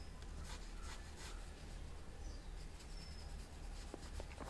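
Faint swishes of a paintbrush spreading orange poster paint on paper, a few soft strokes in the first half, over a low steady hum. Some faint short high chirps and small ticks come through near the end.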